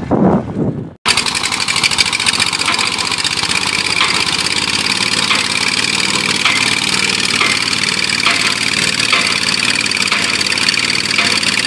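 Diesel engine of a well-drilling rig running steadily, starting abruptly about a second in.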